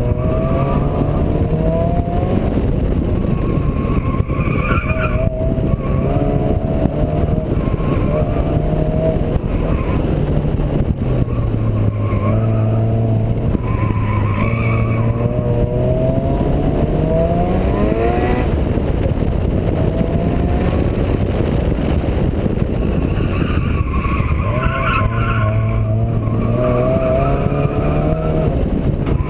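Turbocharged Honda D16 four-cylinder engine in a Civic revving hard under acceleration, its pitch climbing for several seconds and then dropping at each gear change, several times over. Heavy wind and road noise runs underneath.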